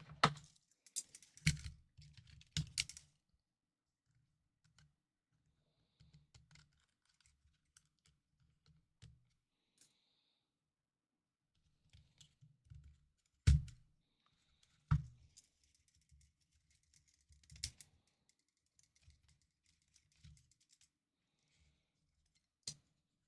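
Scattered clicks and light knocks of small plastic parts and tools being handled on a desk work mat, the sharpest clicks at the start, around the middle and near the end.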